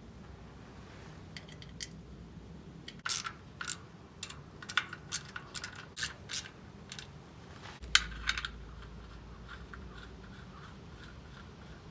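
Wrench clicking and clinking on the nuts of a VW Beetle air-cooled engine's oil strainer cover as they are run down, in an irregular run of sharp metal clicks through the middle, with the loudest click near the end of the run.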